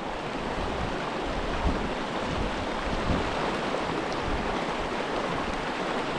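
Trout creek rushing steadily, with a couple of faint knocks about a second and a half and three seconds in.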